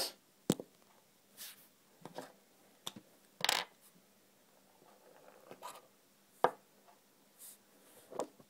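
Scattered handling sounds from a disposable flint lighter and a felt-tip marker: sharp clicks and a few short rasps, the loudest at the start and about three and a half seconds in, fitting the lighter's wheel being struck.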